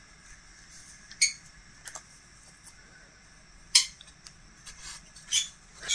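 Handling sounds of a wooden diamond-painting ornament and its clear plastic protective film: a handful of short, light clicks and crinkles, the sharpest a little under four seconds in.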